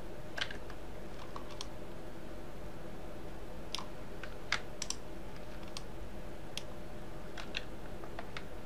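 Irregular clicks of computer keyboard keys and a mouse, about a dozen short taps, over a steady low hum.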